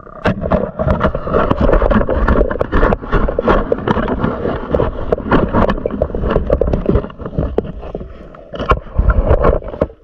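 Muffled underwater sound picked up by a camera in its waterproof housing: a dense run of scraping and knocking with rushing, bubbling water noise, easing off for a moment about eight seconds in.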